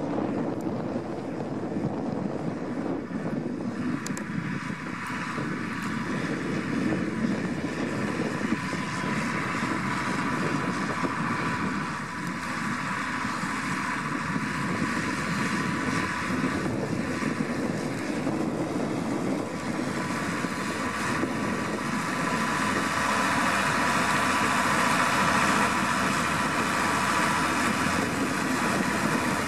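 New Holland TS115 tractor's diesel engine running steadily under load as it pulls a plough, growing louder near the end as it comes close.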